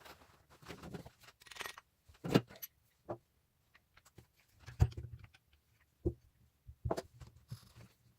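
Small metal vise parts being handled, with scattered clinks and knocks of metal on metal and on the bench; two louder knocks come about two and five seconds in.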